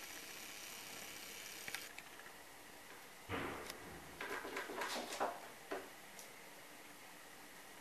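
A peregrine × saker hybrid falcon picking at small objects on a cluttered tabletop, making a short rustle followed by a quick run of light knocks and clatters over about two seconds in the second half.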